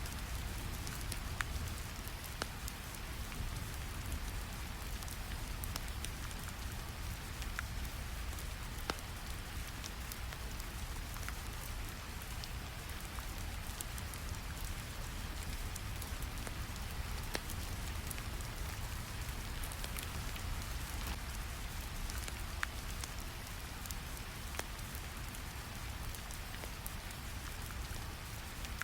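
Steady rain ambience over a low, even brown-noise rumble, with scattered small crackles and clicks throughout.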